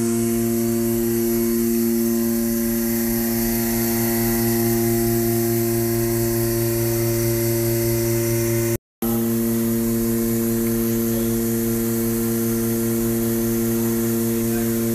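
Loud, steady machine hum at one unchanging pitch, cutting out briefly about nine seconds in.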